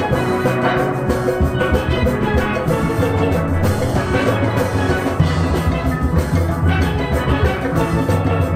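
Steel pan orchestra playing, ringing pan notes over a steady pattern of low bass notes.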